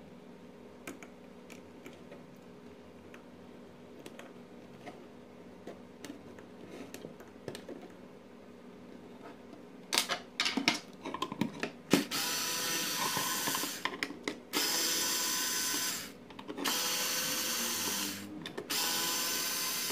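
Faint clicks of plastic being handled, then a cordless drill-driver backing screws out of a plastic light housing in four short runs of the motor, each lasting one to two and a half seconds, starting about twelve seconds in.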